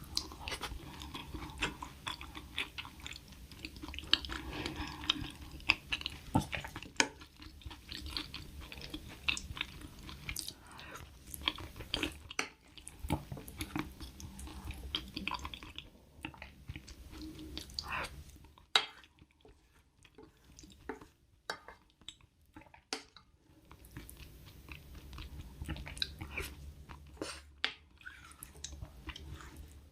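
Close-up chewing and eating sounds: wet mouth clicks and smacks come thick and fast, thin out to a few clicks in a quieter stretch about two-thirds of the way through, then pick up again.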